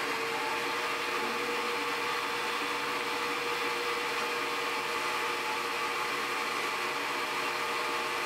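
Benchtop mini metal lathe running at steady speed, its motor and spindle gearing giving a steady whine over an even hiss as a turning cut is fed by hand.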